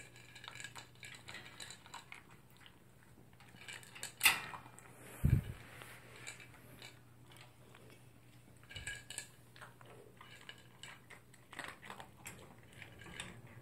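Toy poodle eating from a plastic bowl: a run of small clicks and crunches as it chews and the food rattles against the bowl, with a sharper knock about four seconds in and a dull thump about a second later.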